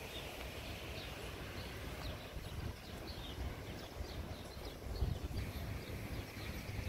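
Small songbirds chirping, with quick high calls repeating several times a second, over a low rumble of wind on the microphone.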